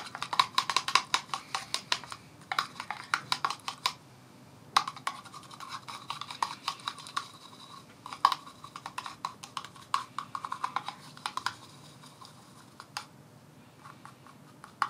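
Paintbrush swirling and tapping inside a small plastic pot, mixing watered-down white paint: fast scratchy clicking in runs of a few seconds, with pauses between, thinning out near the end.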